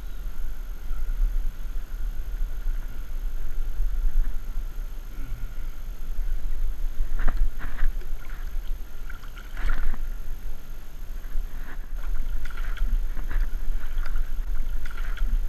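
A hooked Australian bass splashes and thrashes at the surface beside a kayak and is scooped into a landing net, with sharp splashes from about seven seconds in. A low rumble of handling on the head-mounted camera's microphone runs underneath.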